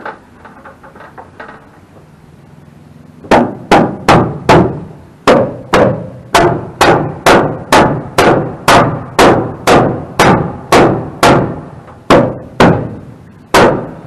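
Hammer striking a wooden board overhead: faint taps, then about three seconds in a fast, steady run of sharp blows, two to three a second. The blows are forcing a tight-fitting board into place.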